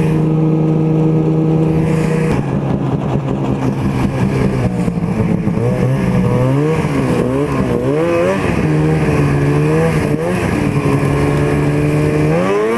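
Snowmobile engine heard from the rider's seat while riding. It holds a steady pitch, drops a step about two seconds in, rises and falls repeatedly as the throttle is worked, and revs up sharply near the end.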